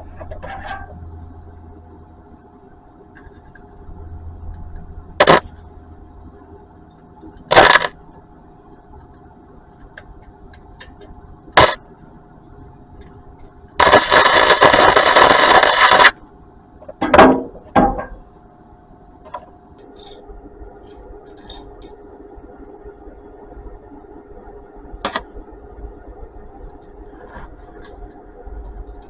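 Arc welder striking tacks on an exhaust pipe: several short bursts of well under a second each and one longer, steady burst of about two seconds near the middle, over a faint steady hum.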